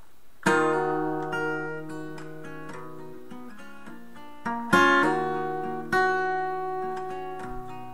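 Music: an acoustic guitar strumming a few chords, each left to ring out and fade.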